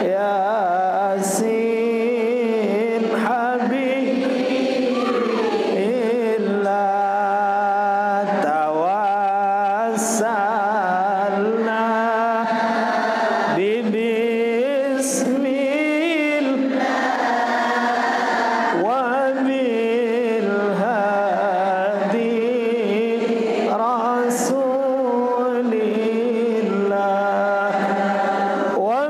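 Islamic salawat being chanted: sung voices drawing out long, ornamented, wavering lines in praise of the Prophet, over a steady held lower note.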